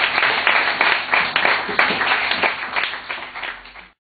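Audience applauding, many hands clapping at once; the applause thins and fades over the last second or so, then cuts off abruptly near the end.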